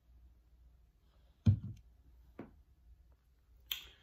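Handling noises: one loud, dull thump about one and a half seconds in, a lighter knock a second later, and a sharp click with a short rustle near the end.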